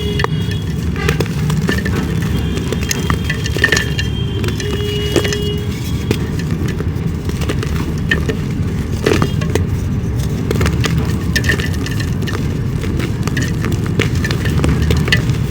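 Dry clay being crumbled and crushed by hand, giving scattered sharp cracks and crackles, over a steady low rumble.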